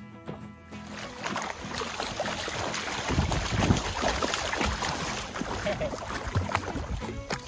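Water splashing and sloshing as a Pomeranian dog-paddles through shallow sea water, getting louder from about three seconds in. Soft music fades out in the first second.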